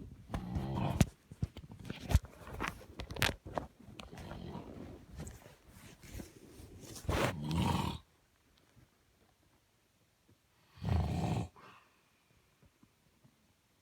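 A man snoring in his sleep, with irregular rattling snores. The loudest comes about seven seconds in, and after a few seconds' pause another comes about eleven seconds in. A few sharp clicks sound in the first few seconds.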